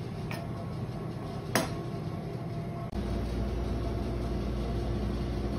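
Steady mechanical hum of commercial kitchen equipment, with two sharp clicks at the cutting board in the first two seconds, the second the louder. About three seconds in, a steadier, deeper hum takes over.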